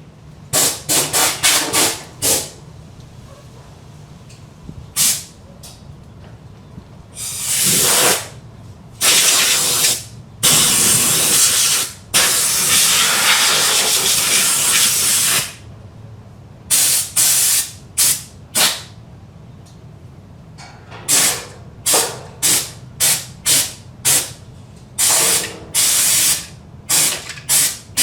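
Compressed-air blow gun hissing in bursts as it blows dust out of a refrigerator's condenser coils. There are quick short blasts at first, several longer blasts of one to three seconds in the middle, then a rapid run of short blasts.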